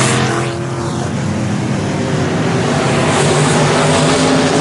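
IMCA Northern SportMod race cars' V8 engines running as the cars circle a dirt oval, one car passing close near the start.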